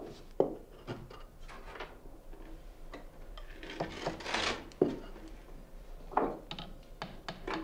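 Scattered knocks, clinks and short scrapes of metal parts and tools being handled at a workbench, with a longer scrape about halfway through and another near the end.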